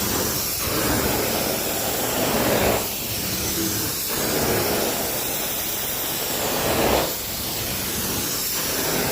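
Carpet-cleaning extraction wand spraying and sucking in repeated strokes: a steady loud hiss that builds and then drops off sharply at the end of each stroke, about every three and a half to four seconds.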